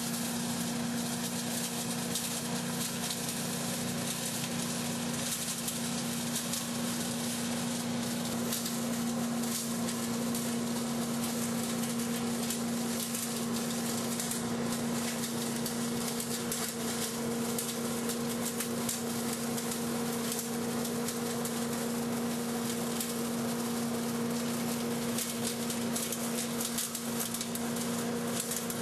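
Agrinova AS10 self-propelled leaf vacuum running steadily, a constant engine hum under a rushing, crackling hiss of dry leaves being sucked up through its nozzle.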